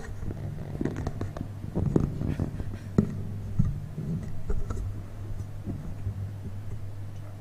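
Low, steady electrical hum from a lecture-hall PA system, with scattered knocks and rubbing from the microphone being handled at the lectern as the fault is dealt with.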